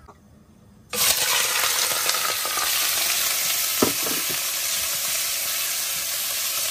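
Sliced pork going into hot oil in a pot: quiet at first, then a loud, steady sizzle bursts in about a second in, with a wooden spatula stirring the meat.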